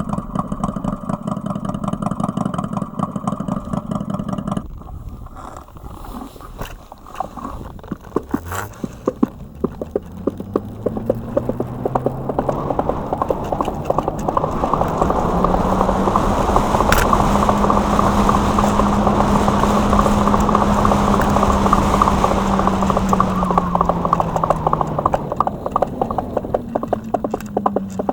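Synthetic engine sound from an electric unicycle's acoustic vehicle alerting system (AVAS), played through the Kingsong 16X's speakers. A steady engine note cuts off about four and a half seconds in; then a new engine note rises in pitch as the wheel speeds up, holds steady for several seconds and falls away near the end, over a rapid clatter of clicks.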